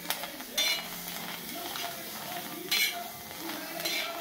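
Green chillies sizzling in a dark iron pan while a metal spatula scrapes and tosses them, with a few scraping strokes against the pan over a steady frying hiss.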